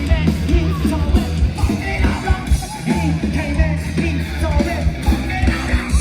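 Rock band playing loud, heavy music with pounding drums and bass, and a singer shouting over it.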